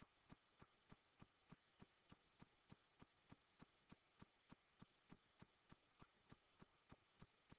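Near silence with a faint, evenly spaced ticking about three times a second.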